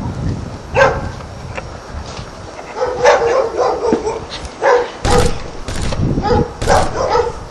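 A dog barking repeatedly, about ten short barks at uneven spacing.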